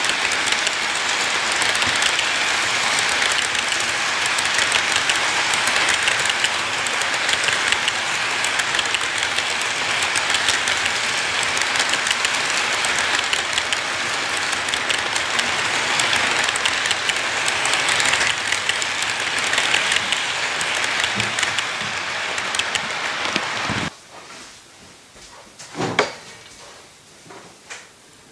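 Model train freight cars rolling past close by: a steady rushing clatter of small wheels on the track. About 24 seconds in it cuts off suddenly to a much quieter background, with a sharp knock about two seconds later.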